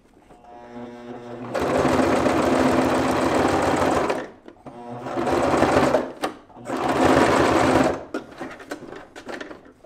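Electric sewing machine stitching a seam through backpack fabric. It speeds up about a second in, runs steadily for a few seconds, stops, then runs twice more in shorter spurts, with light clicks of handling near the end.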